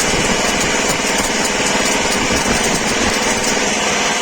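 Inverter stick-welding arc crackling and hissing steadily, over a generator engine running.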